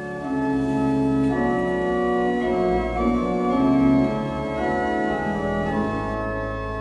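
Organ music: slow, held chords that change about once a second, settling on a long low held note near the end.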